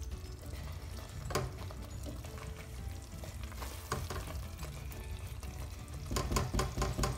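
A spatula stirring a thick lamb and pumpkin curry in a pot on the hob, the curry sizzling as it cooks, with scrapes and knocks of the spatula against the pot, several in quick succession near the end.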